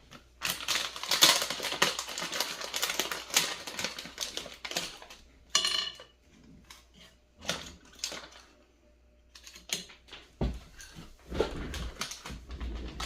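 Crinkling and clicking from the electronics kit's packaging and parts being handled on a table. A dense crackle runs for the first few seconds, then comes scattered clicks and knocks, with a few low thumps near the end.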